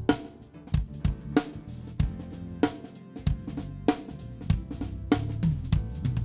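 Live band sound check: a drum kit playing a steady groove of kick, snare and cymbal hits over a bass guitar holding low notes that change pitch.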